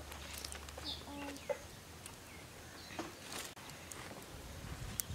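A few short bird calls, with scattered clicks and light rustling.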